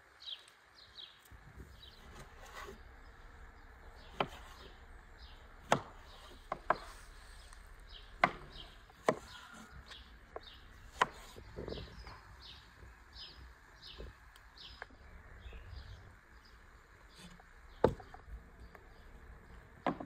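Meat cleaver chopping peeled tomatoes on a wooden cutting board: single sharp knocks at irregular intervals, starting a few seconds in. Faint high chirps repeat steadily in the background.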